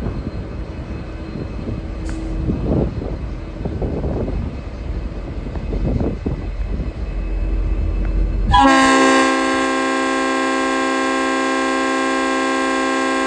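V/Line N class diesel locomotive rumbling as it pulls away. About two-thirds of the way in, its Leslie RS5T air horn sounds a loud, long, perfectly steady chord, extended by editing.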